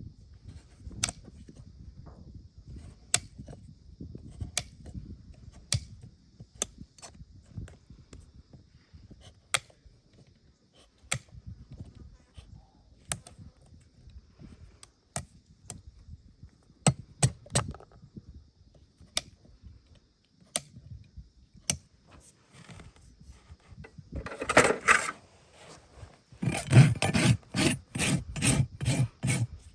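Scattered sharp clicks, a second or two apart, over a low rumble; then near the end a farrier's rasp filing a horse's hoof in fast, even back-and-forth strokes.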